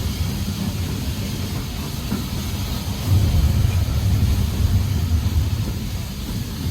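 Heritage railway train running along the line, a steady low rumble of the coaches on the track with a hiss above, a little louder about three seconds in.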